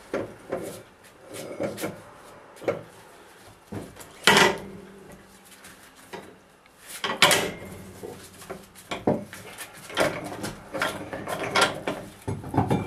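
Metal parts of a pneumatic air-bag jack's telescopic column being handled and threaded together: irregular clanks, knocks and scraping, with two louder ringing knocks about four and seven seconds in.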